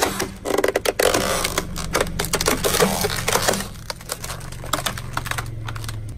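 Red plastic toy bricks clicking and cracking in quick irregular bursts as a car tyre rolls slowly over them, over the low steady hum of the car's engine.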